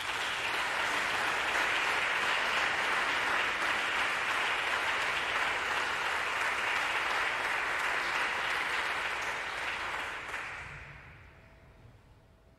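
Audience applauding steadily, then dying away over the last two seconds or so.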